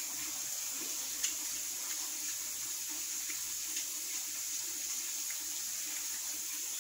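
Kitchen sink tap left running, a steady hiss of water, with a faint click about a second in.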